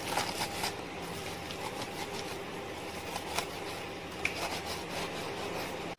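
Kitchen knife slicing through crisp-coated fried chicken fillets on a plastic cutting board: a few soft crunches and taps, spaced apart, over a steady background hiss.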